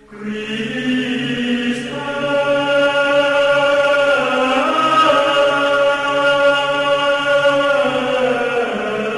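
Background music of long, sustained choir-like vocal chords that change slowly, starting abruptly at the opening as a new piece begins.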